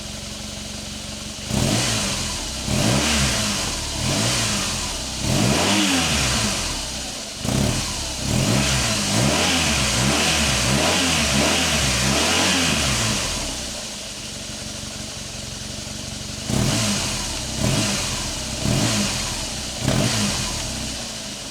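BMW R1200 GS Adventure's boxer-twin engine on its stock BMW exhaust, idling and being revved by throttle blips. There are short revs from about a second and a half in, a longer run of revving through the middle, a drop back to idle, then four quick blips near the end.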